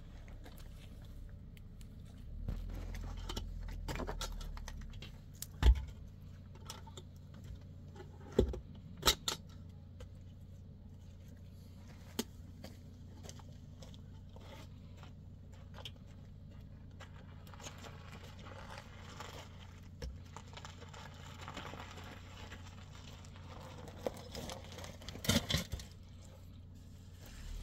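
Irregular knocks and clinks of objects being handled, about half a dozen sharp ones, with a low rumble for about two seconds near the start.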